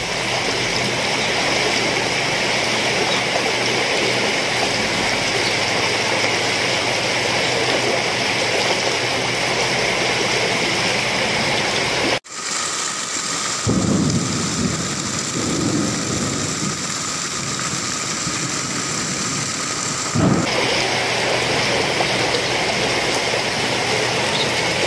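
Floodwater rushing through a flooded street, a steady loud rush of water. About halfway through the sound cuts out for an instant, then carries a deeper rumble for several seconds before the even rush returns.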